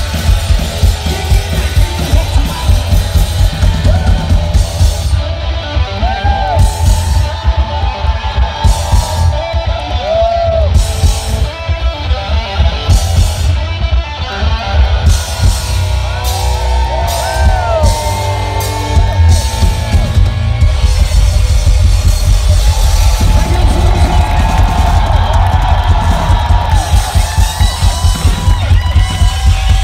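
Live rock music from a guitar-and-drums duo: an electric guitar plays lead lines full of string bends over a drum kit played fast and hard, heard loud and close from the crowd.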